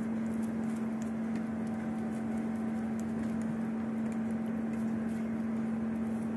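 A cat licking and chewing soft cheese, making many small wet clicks, over a steady low hum.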